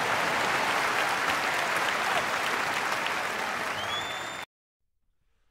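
Crowd applauding, with a short rising whistle near the end; the applause cuts off abruptly about four and a half seconds in.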